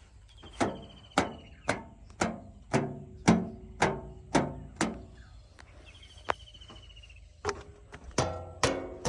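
Background music of plucked, pitched notes at a steady beat of about two a second, with a pause about five seconds in and a short high warbling figure near the start and again about six seconds in.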